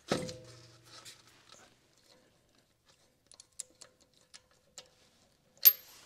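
A metal clank at the start that rings for about a second, then scattered light clicks as a wheel bolt is started into the hub with a socket and extension, with a sharper click near the end.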